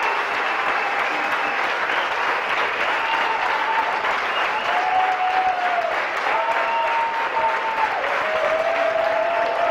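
Sustained applause from a crowd of people clapping, steady throughout. Several long held tones sound faintly through it, each lasting a second or two and sliding down at the end.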